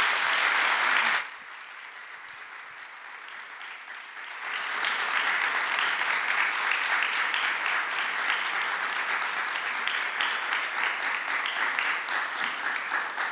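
Audience applauding. The clapping dies down to a quieter patter about a second in, then swells back up about four seconds later and carries on steadily.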